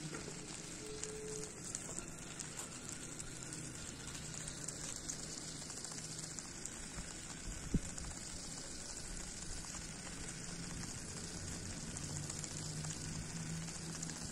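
Faint crackling hiss of a small homemade toy car with a yellow DC gear motor crawling over gritty ground, with a low motor hum that comes and goes. There is one sharp tick a little past halfway.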